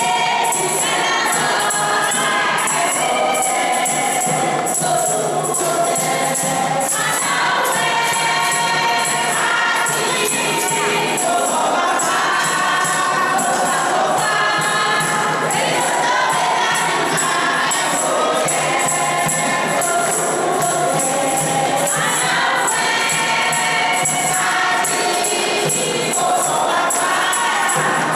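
Choir of mixed voices singing a lively church song together, with rhythmic percussion keeping a steady beat.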